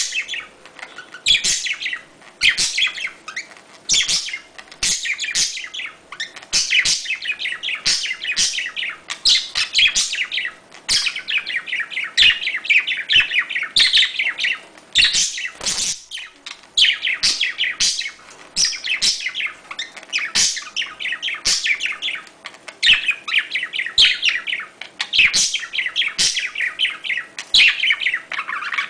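Budgerigars chattering and warbling rapidly while mating: dense, high-pitched chirps in bursts of a second or two with short breaks, with sharp clicks among them.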